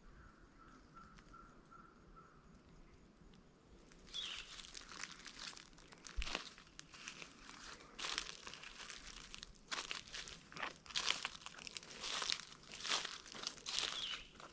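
Footsteps crunching through dry dead leaves and ground cover, starting about four seconds in and going on at a steady walking pace. Before that there is only faint woodland background with a soft repeated high note.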